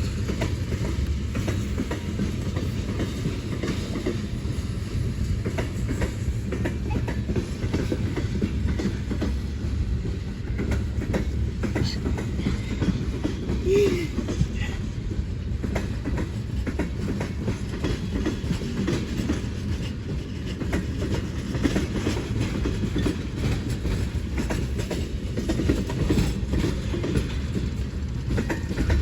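A train rolling past: a steady low rumble with the rapid clatter of wheels over the rails.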